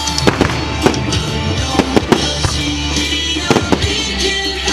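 Aerial fireworks bursting overhead: about half a dozen sharp bangs at uneven intervals, over continuous music.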